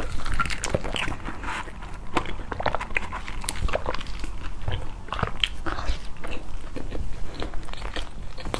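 Close-miked chewing of a soft bread pastry: a steady run of small mouth clicks and smacks. Near the end comes a rustle of a plastic bread wrapper being opened.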